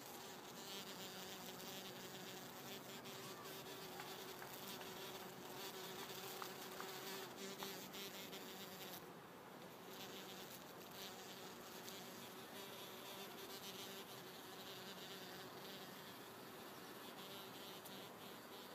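A black bumblebee's wings buzzing as it flies among bottlebrush flowers, a faint steady hum.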